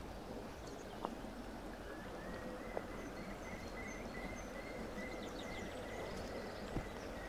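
Steady outdoor ambience of a shallow, stony stream running, with low wind rumble. Birds call over it: from about two seconds in, a run of short, even high notes repeated a few times a second, plus scattered higher chirps. Two faint clicks come about a second and about three seconds in.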